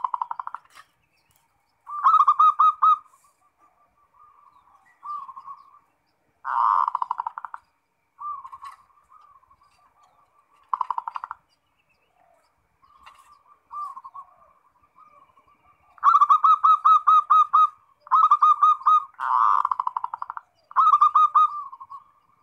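Zebra doves (perkutut) cooing: short phrases of quick, pulsed coo notes, one every second or two. Loud phrases alternate with fainter ones, and the loudest run comes in the last third.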